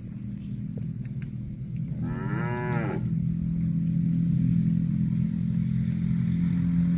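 A cow moos once, about two seconds in: a single call of about a second whose pitch rises and then falls. A steady low drone runs underneath and grows louder throughout.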